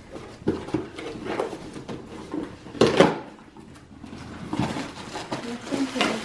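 Rustling and knocking of a gift being unwrapped and its box handled, in irregular bursts, the loudest about three seconds in.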